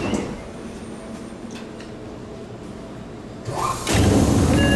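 Seibu 9000 series commuter train standing at a station with a low steady hum, then its sliding passenger doors open about three and a half seconds in with a sudden rush. A louder, lower rumble follows to the end.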